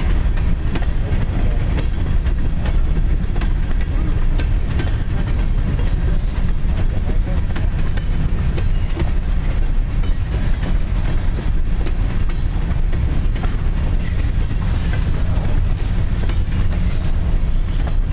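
Covered hopper cars of a long freight train rolling past close by: a steady low rumble of steel wheels on rail, with scattered clicks and clacks from the wheels.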